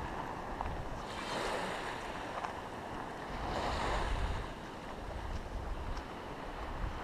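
Sea waves washing in, two swells of surf about one and four seconds in, over a steady low rumble of wind on the microphone.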